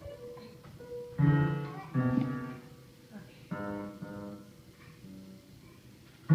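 Piano playing slow chords, each struck and left to ring and fade, with pauses between them.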